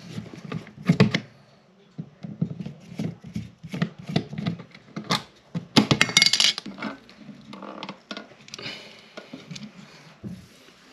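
Hand-work on a wall outlet: clicks and scrapes of a screwdriver backing out the cover-plate screws, and a plastic outlet cover plate clattering down onto the countertop about six seconds in.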